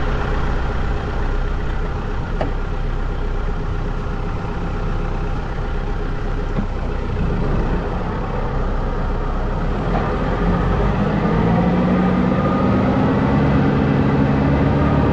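Small tractor's engine running with a flail mulcher attached, a steady mechanical drone. About eleven seconds in the engine note rises in pitch and grows louder.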